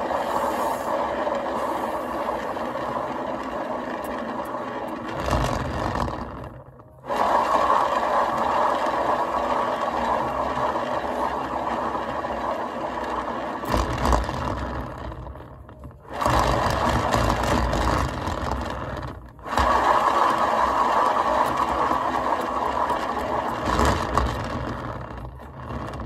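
Paint-pouring spinner turntable whirring and rattling as it spins the wet canvas. It stops and is spun up again three times, then winds down near the end.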